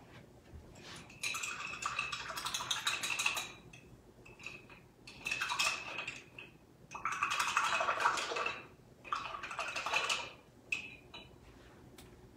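Paintbrush being rinsed in a water cup: four bursts of swishing and knocking against the cup.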